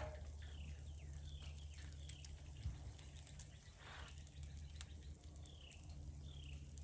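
A bird calling repeatedly in short downward-sliding chirps, about two a second with a pause in the middle, faint over a steady low hum.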